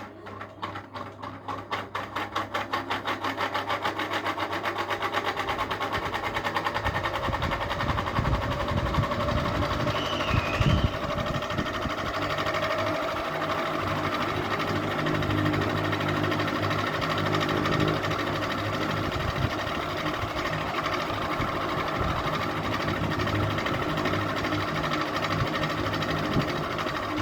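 Electric ceiling fan starting up: a rhythmic beat from the blades that quickens and grows louder over the first several seconds, then settles into a steady whirring hum at running speed.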